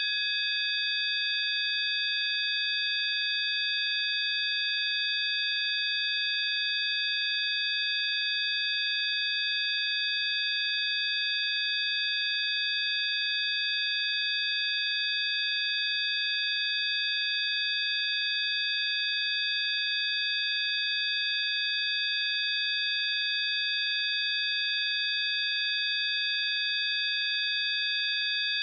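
Several steady, high-pitched pure sine tones sounding together without change: a synthesized healing-frequency tone.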